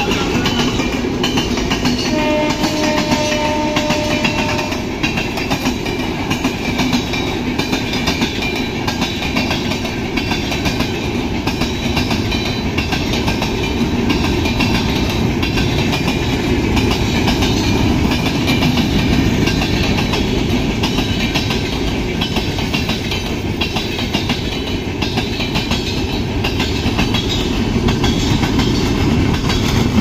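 Indian Railways passenger coaches running past at speed, a continuous rumble with wheels clattering over the rail joints. About two seconds in a train horn sounds one steady blast of about two and a half seconds.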